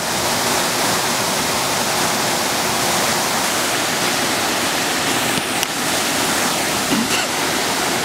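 Steady rushing of a small waterfall pouring over a rock ledge into a pool.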